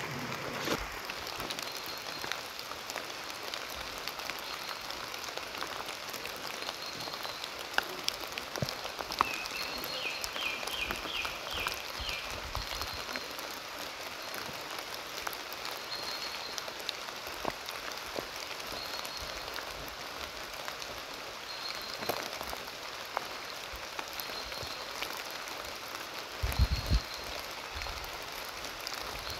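Steady rain falling through a leafy forest. A bird repeats a short high note every couple of seconds and gives a quick trill of about six notes some ten seconds in. A few low thumps are heard, the loudest near the end.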